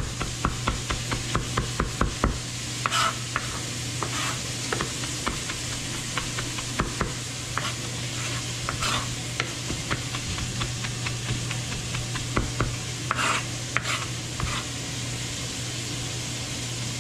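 Chef's knife chopping fresh rosemary and thyme on a plastic cutting board: quick repeated knocks for the first couple of seconds, then slower scattered chops and a few scrapes of the blade across the board. Underneath runs the steady sizzle of onions frying in a pot, with a steady low hum.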